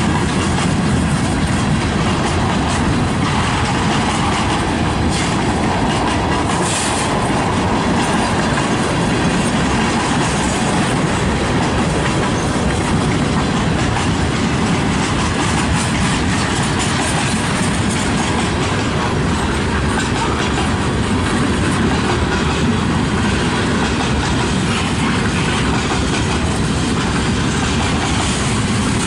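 Freight train rolling past, a steady clatter of its cars' wheels on the rails.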